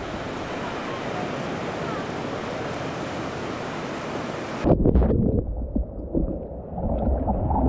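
Ocean surf breaking in a steady rush. About four and a half seconds in it changes abruptly to a louder, muffled rush of churning water and wind buffeting the microphone of a surfboard-mounted camera riding a wave.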